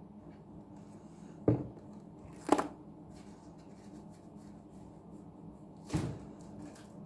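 Two sharp handling knocks about a second apart near the start, then a squish about six seconds in as a sponge is pressed down onto a soap-covered sponge in a plastic tub, over a steady low hum.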